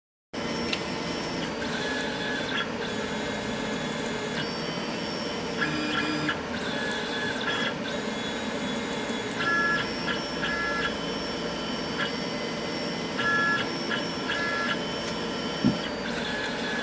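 Stepper motors of a CNC 3020 router whining as they move the UV laser head over the board. The tones switch pitch every second or so as the axes start, stop and change speed, and there is a single sharp click near the end.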